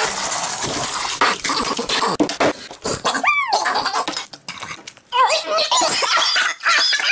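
Sped-up messy clatter and squelching of hands slapping and scraping through wet food and scattered coffee beans, with many short knocks. A short pitched squeal sweeps up and down about three seconds in, and warbling pitched sounds come in near the end.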